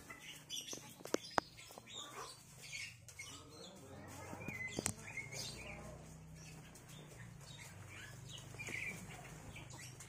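Free-range village chickens foraging and clucking, with small birds chirping in short calls throughout. Three sharp clicks come in the first five seconds.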